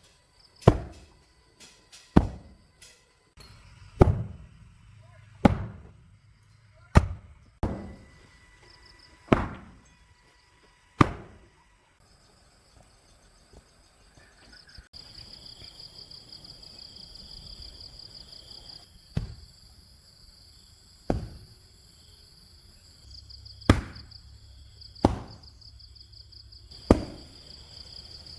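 A hand tool striking the ground in slow, steady blows about every one and a half seconds, stopping for several seconds in the middle before starting again. Insects trill steadily in the background from about halfway through.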